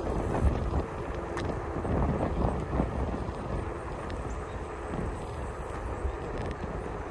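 Wind buffeting the microphone while moving at speed along an asphalt path, a steady low rumble with a few faint clicks and knocks.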